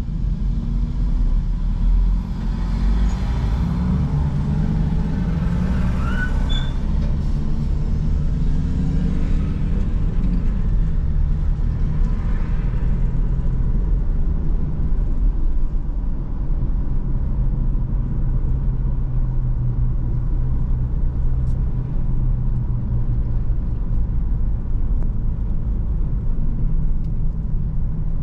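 Car engine and tyre rumble heard from inside the cabin. The car pulls away and gathers speed, the engine note rising over several seconds, then settles into a steady cruise.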